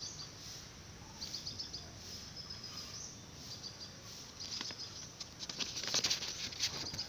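Small birds chirping in short, quick runs of high notes about once a second over steady outdoor background noise. Louder clicks and rustling come in over the last couple of seconds.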